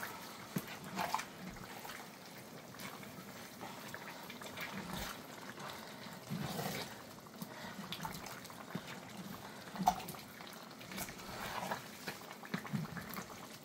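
Spoon stirring a large metal pot of cassava leaf soup with palm oil: faint, irregular wet squelching and sloshing, with scattered light clicks of the spoon against the pot, the sharpest about ten seconds in.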